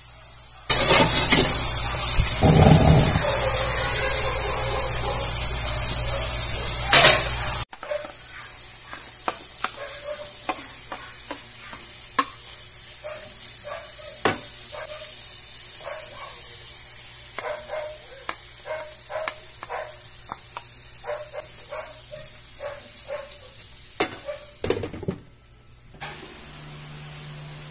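Diced pork sizzling loudly in hot oil in a frying pan, cutting off abruptly after about seven seconds. Quieter scattered clicks and scrapes follow as the green beans and carrots are stirred in the pan.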